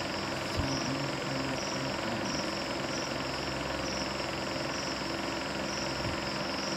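Steady low hum and hiss of background noise, with a faint high note pulsing a little under a second apart.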